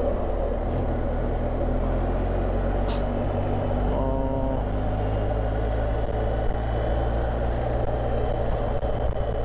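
BMW adventure motorcycle riding through city traffic at moderate speed: a steady low engine and wind rumble. A short hiss comes about three seconds in, and a brief pitched tone about a second later.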